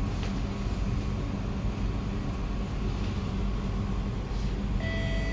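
Steady low hum inside a Kawasaki–CRRC Sifang C151B MRT carriage standing at the platform. Near the end a door-closing chime of clear tones begins.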